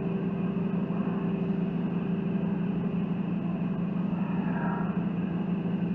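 A steady low hum at an even level throughout, with faint, indistinct sounds over it.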